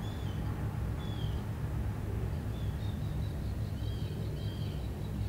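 Small bird giving short, thin, high chirps that fall slightly in pitch, about six of them scattered through, over a steady low rumble.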